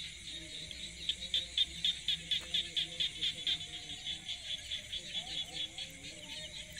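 Chorus of chirping insects, a high shrill pulsing about four to five times a second without a break.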